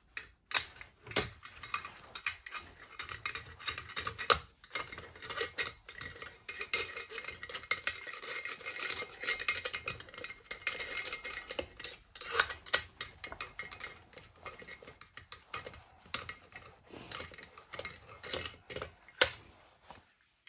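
Metal hand tools clicking and scraping on the muffler and bolts of an aftermarket 372XP chainsaw as it is unbolted and taken apart, a dense run of irregular small clinks.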